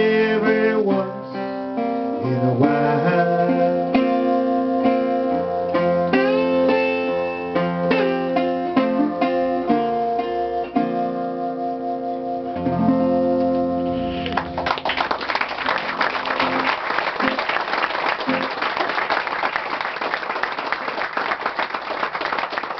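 Dobro resonator guitar played with a slide, ringing out the closing notes of a blues-folk tune with some sliding pitch glides. About fourteen seconds in the guitar stops and an audience applauds.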